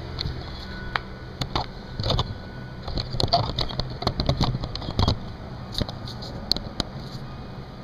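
Scattered clicks and knocks of small parts and tools being handled, over a steady low hum.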